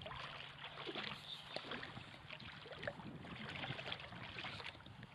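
Water lapping and splashing close by: many small, irregular splashes over a faint, low steady hum.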